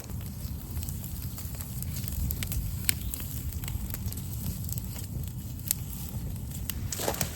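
Wood fire burning in a fire pit, with scattered sharp crackles and pops over a low steady rumble.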